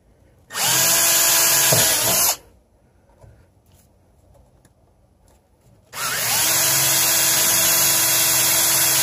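Milwaukee cordless drill drilling out two screw holes: a short run of about two seconds, then a longer one starting about six seconds in. Each run is a steady motor whine.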